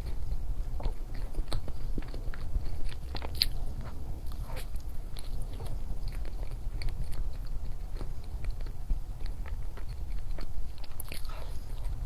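Close-miked biting and chewing of chocolates: many short, crisp crunches and mouth clicks at an irregular pace, over a steady low hum.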